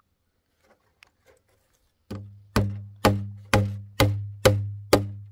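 A steady series of hard blows, seven of them about two a second, starting about two seconds in. Each leaves a short, low ringing tone as it dies away.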